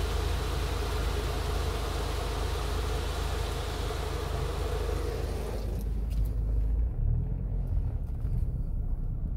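Automatic car wash heard from inside the car: a steady rush of water spraying over the body. It cuts off suddenly about five and a half seconds in as the car leaves the wash, leaving only the car's low rumble.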